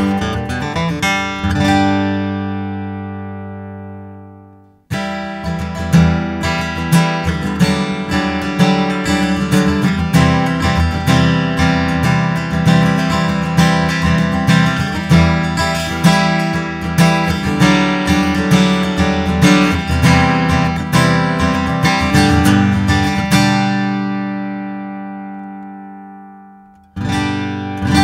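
Taylor extra-deep dreadnought acoustic guitar with a sinker redwood top, played solo. A chord rings and fades in the first few seconds, then a steady run of quickly picked notes goes on for about eighteen seconds. Another chord is then left to ring out, and a fresh strum comes just before the end.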